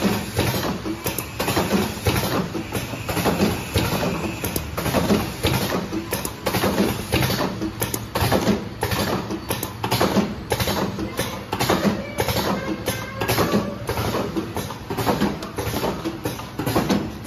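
Vertical automatic cartoning machine running: a rapid, irregular clatter of clicks and knocks from its moving parts over a steady low hum.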